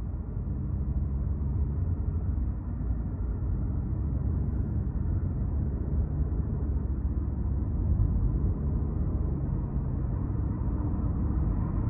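Cabin road noise from a car driving on an expressway: a steady low rumble of tyres and engine, rising slightly in loudness in the first second or so.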